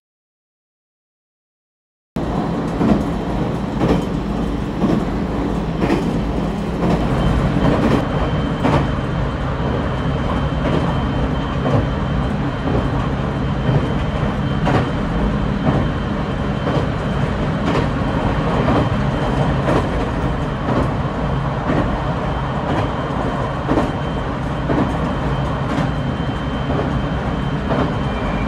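Train running on the rails, a steady running noise with occasional clacks from the wheels over the track. It cuts in about two seconds in after silence.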